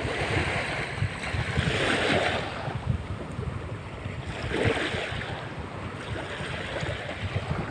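Sea waves washing in, swelling twice, with wind rumbling on the microphone.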